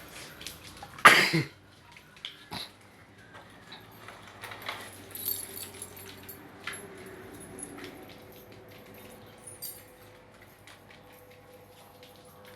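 A dog barks once, loudly, about a second in, followed by scattered quieter clicks and small knocks.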